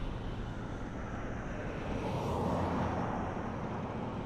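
Vehicle noise passing by, swelling to a peak about two seconds in and then easing off.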